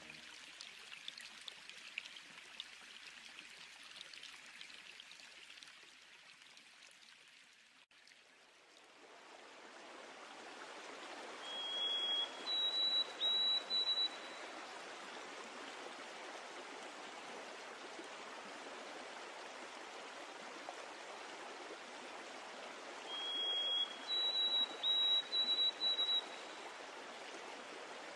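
Running water, trickling at first with small drip-like clicks, then, after a sharp break about 8 seconds in, a fuller steady rush like a stream. Twice over this water a short high whistled call sounds: one steady note, then a few slightly higher broken notes. This call is the loudest thing heard.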